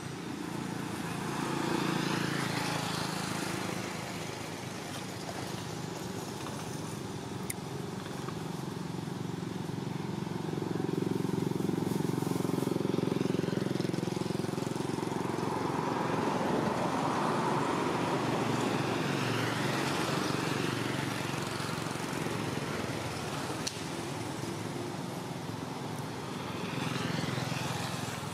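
Engine noise of passing motor vehicles: a low hum that swells and fades several times, loudest through the middle.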